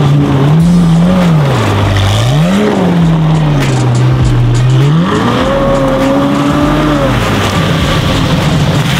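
McLaren 720S's twin-turbo V8 revving up and down as the car drifts in circles on snow. The revs are held high for a couple of seconds just past the middle, then drop.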